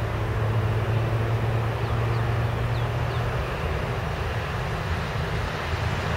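Jet airliner engines giving a steady low rumble under a wash of wind noise. The low hum fades out a little over halfway through.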